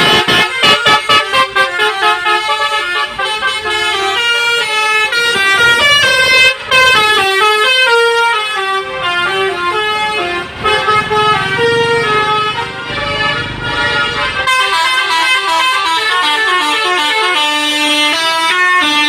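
Telolet horn on an Agam Tungga Jaya bus: a multi-tone musical air horn playing a tune of stepped notes, beginning with a run of quick short toots. Around the middle, a low rumble of the bus runs under the horn for a few seconds.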